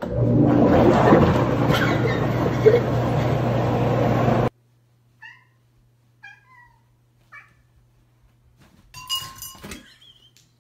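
Loud steady rushing noise with a low hum that cuts off suddenly, then a cat giving three short, falling meows about a second apart.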